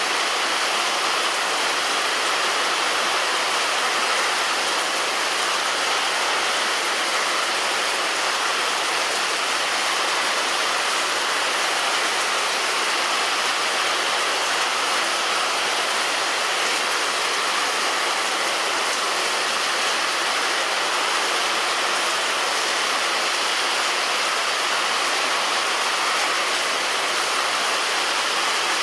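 Heavy rain falling steadily on a roof: a dense, even hiss with no single drops or thunder standing out.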